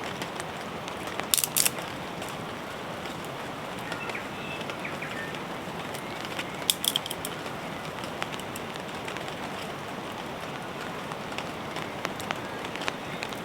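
Steady rain falling, with two short clusters of sharp cracks, the first a little over a second in and the second about halfway through.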